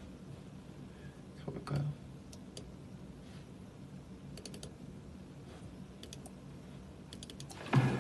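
Scattered light clicks of a computer keyboard, in short runs of a few keystrokes. There is a brief low sound about two seconds in and another near the end.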